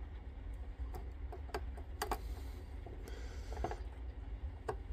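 Scattered light clicks and taps as a small screwdriver works the screw terminals of a low-voltage cutoff board and the wires are handled, over a steady low rumble.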